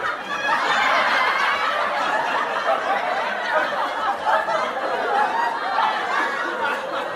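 A group of people laughing together, many voices overlapping in a steady mass of laughter.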